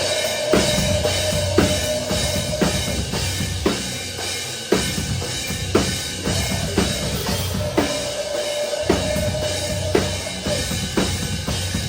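Live metalcore band playing, heard close to the drum kit: a slow, heavy beat with a snare hit about once a second over bass drum, cymbals and the rest of the band.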